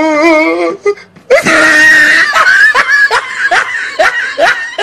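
A person laughing hard: a wavering, drawn-out laugh at the start, then a shrill laugh about a second in that breaks into short rapid bursts, about three a second.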